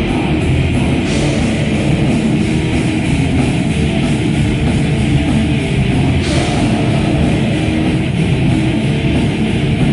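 Heavy metal band playing live: distorted electric guitars and drums in a loud, dense, unbroken wall of sound.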